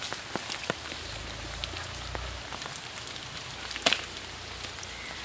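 Light rain falling, with scattered drops ticking and dripping and one sharper tap about four seconds in.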